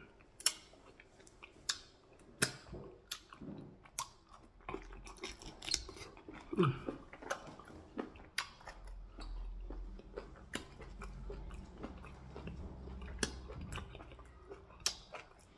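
Close-miked chewing of meat and fufu in a green leafy soup, eaten with the fingers. Irregular wet smacks and sharp mouth clicks come every second or so.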